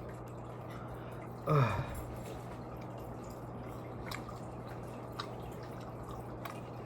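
A person eating nacho fries, with a few faint crunches and clicks over a steady low hum. About one and a half seconds in, a short, loud sound slides steeply down in pitch.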